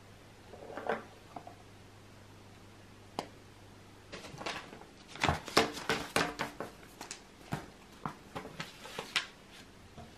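Handling noise of paper sheets and a cotton T-shirt being moved and smoothed out on a table: a faint rustle about a second in, then a string of short sharp clicks, taps and rustles from about four seconds in until near the end.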